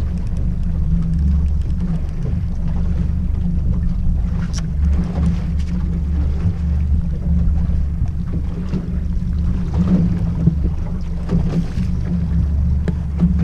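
Outboard motor running at slow trolling speed, a steady low drone, with wind on the microphone. A few brief clicks sound about halfway through and again later.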